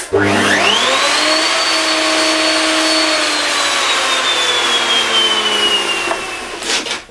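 A table-mounted router is switched on: the motor whine climbs steeply to full speed over about a second and a half, holds, then slowly sinks in pitch and fades near the end.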